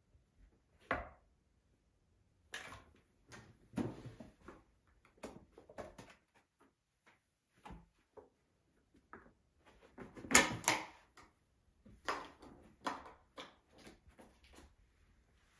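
Siberian kitten playing on its own: irregular taps, knocks and scuffles, with the loudest cluster of knocks a little past halfway.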